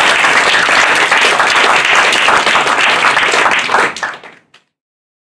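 Audience applauding, a dense patter of many hands clapping, fading out about four seconds in.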